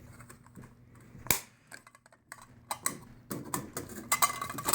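Clicks and light rattling of plastic and metal parts as an LED recessed light fixture and its junction box are handled, with one sharp click about a second in and a run of smaller clicks near the end.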